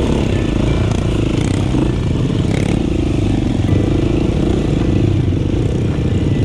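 KTM 350 dirt bike's single-cylinder four-stroke engine running steadily under throttle, pulling the bike up a steep, narrow dirt trail.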